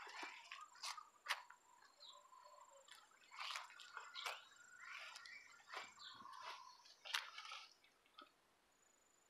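Faint outdoor ambience: scattered short chirps and clicks, with a thin steady high tone that drops out about six seconds in.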